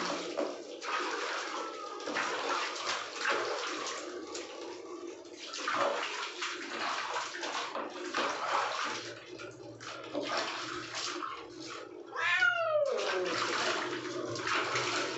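A cat meowing while being bathed in a tub of water, with water splashing and sloshing throughout. A few fainter meows come earlier, and a loud, long meow falling in pitch about twelve seconds in.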